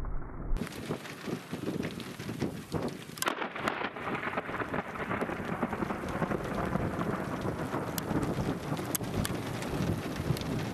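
Heavy rain with drops pattering close on the microphone, and thunder from a lightning strike about 900 m away: a sharp crack about three seconds in, then rumbling that carries on under the rain.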